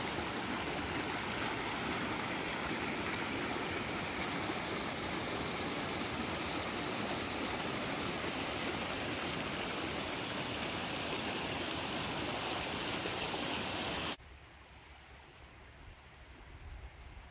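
Small mountain stream rushing and splashing over rocks and mossy logs in a steady, loud rush. About fourteen seconds in it cuts abruptly to the much quieter sound of a shallow creek flowing gently.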